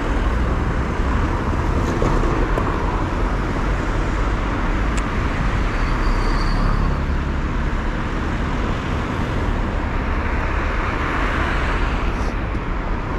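Road traffic noise: cars and other vehicles driving past in a steady stream, with a deep low rumble.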